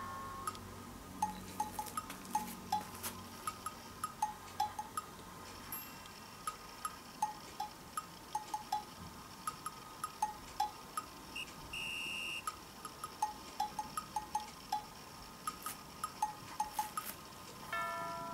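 Light background music of short, bell-like plinking notes in a loose, bouncy rhythm, with one brief held higher note about two thirds of the way through.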